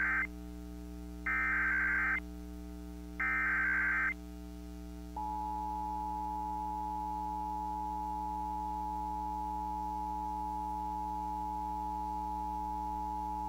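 Emergency Alert System header and attention signal: the end of one harsh buzzing SAME data burst and two more of about a second each, spaced about two seconds apart, then about five seconds in the steady two-tone EAS attention signal begins and holds. A steady low hum runs underneath.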